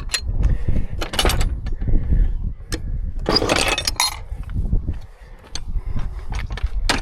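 Metal gate and latch clinking and knocking as the gate is opened and shut, with the loudest clatter about a second in and again between three and four seconds in. A low rumble from wind and handling on the microphone runs underneath.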